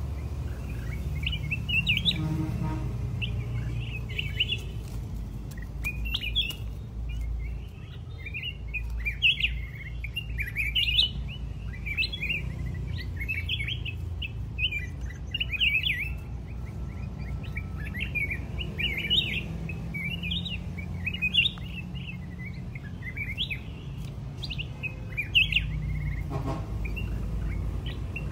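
Bulbuls giving short chirps in quick succession throughout, the calls of a loose bird attacking a caged rival. A low rumble runs underneath.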